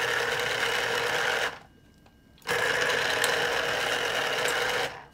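Electric citrus juicer motor spinning its reamer under a pressed orange half. It runs steadily, stops about a second and a half in, starts again about a second later and runs until near the end.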